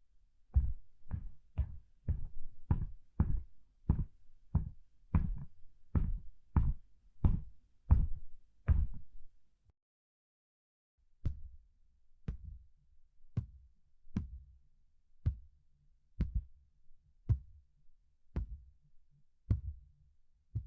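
Soft footsteps: a steady walk of about two steps a second. About halfway through there is a short pause, then the steps resume more slowly at about one a second, each with a slight click.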